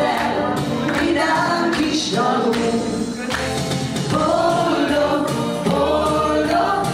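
A small group of singers singing a song together through microphones and a PA, with electric keyboard accompaniment and a beat underneath.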